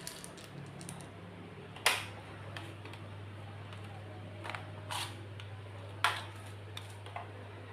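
Sharp plastic-and-metal clicks from handling a newly unboxed gold Desert Eagle pistol and its packaging. There are two loud clicks about four seconds apart and a few softer ones between them, over a steady low hum.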